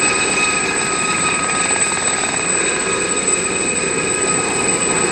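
Gazelle helicopter hovering low, its turbine and rotors running at a steady level, with a constant high-pitched whine over the rotor noise.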